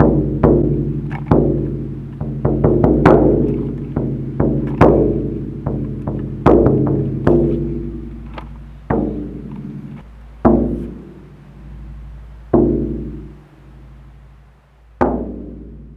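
Hand-made leather-headed drum being struck, each hit ringing on with a low, sustained tone. There is a quick run of strikes a few seconds in, then slower, spaced hits near the end. The head is still drying and tightening, so its tone is rising.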